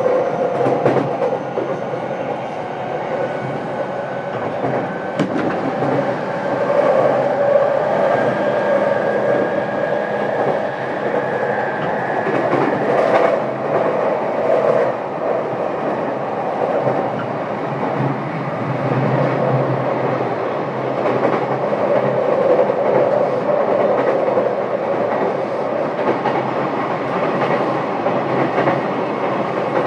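JR East E233-7000 series electric multiple unit heard from aboard its motor car while running: a whine from the traction motors and inverter over steady wheel-and-rail noise, with wheels clacking over rail joints. One whine climbs gently in pitch over the first dozen seconds and then fades.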